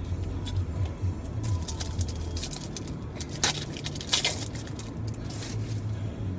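A pack of Leaf Draft football trading cards being torn open, its wrapper crinkling in a run of short crackles and rustles. The loudest come about three and a half and four seconds in. A steady low hum from the car runs underneath.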